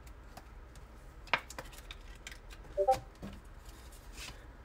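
A few scattered sharp clicks and light taps, the loudest about a second and a half in and another small cluster about three seconds in.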